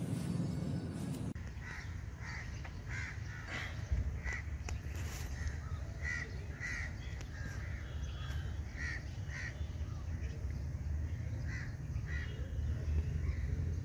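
Birds giving short, harsh calls repeated one or two a second at uneven spacing, over a steady low rumble. A fuller noise cuts off about a second in.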